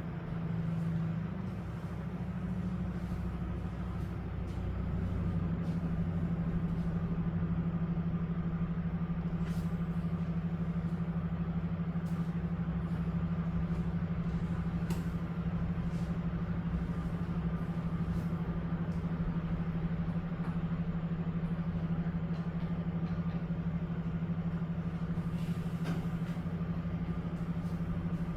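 A steady low mechanical hum with a few faint clicks scattered through it; the hum settles into an even level about five seconds in.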